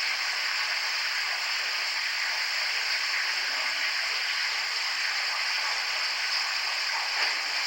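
Steady hiss of static, even and unbroken.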